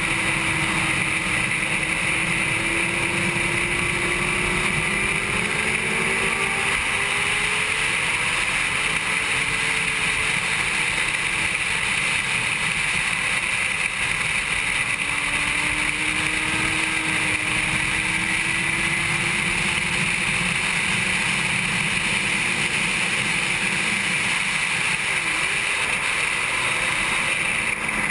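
Onboard sound of a 2007 Honda CBR600RR's inline-four engine at racing speed, buried in heavy wind rush over the camera microphone. The engine note climbs and drops with throttle and gear changes.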